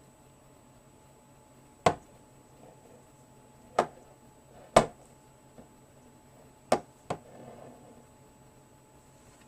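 Five sharp, unevenly spaced clicks and knocks, the last two close together, from handling a Neilsen multi-angle 3/8-inch drive ratchet.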